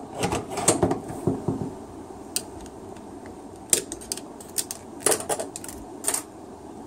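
Steel clutch drum and input shaft from a Ford BTR 4-speed automatic transmission being handled: irregular metallic clicks and clunks, a cluster in the first second or so and a few sharper knocks after that.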